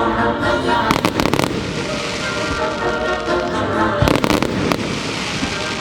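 Fireworks bursting over the show's music: a quick cluster of sharp bangs and crackles about a second in, and another near four seconds in, with the music playing steadily underneath.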